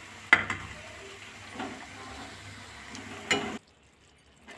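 Maida-dough shakkar pare deep-frying in hot oil: a steady sizzle, with a few clicks of a metal slotted spoon against the pan. It cuts off abruptly about three and a half seconds in.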